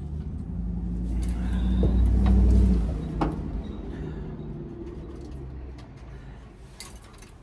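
A motor vehicle driving past: a low engine rumble that swells to its loudest about two and a half seconds in, then fades away. A couple of light clicks are heard during it.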